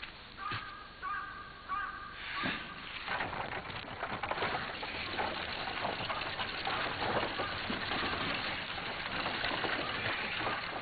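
A crow caws a few times in short calls. From about two seconds in, a dense, even noise builds and covers the rest.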